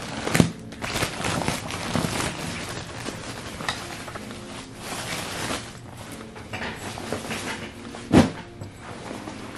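Clear plastic poly bag crinkling and rustling in irregular spells as a jacket is pulled out of it and handled, with a sharp thump about half a second in and a louder one near the end.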